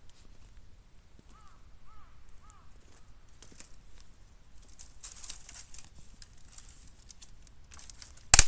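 Bamboo fire in a bottomless 18-litre square can, crackling faintly with some hiss, and one sharp loud crack near the end, typical of a bamboo section bursting in the heat. Three short faint chirps about two seconds in.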